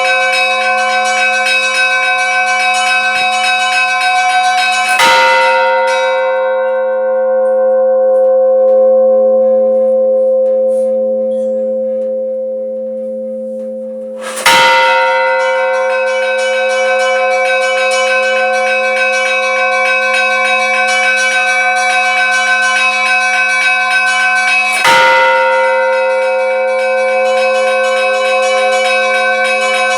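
A large church bell struck three times, about ten seconds apart. Each stroke leaves a long ringing hum with many overtones, and the higher overtones fade first.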